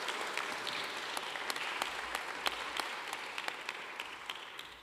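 Audience applauding: many separate hand claps, dying away near the end.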